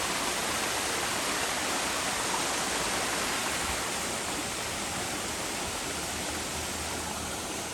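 Steady rush of flowing water from a stream, growing slightly fainter toward the end.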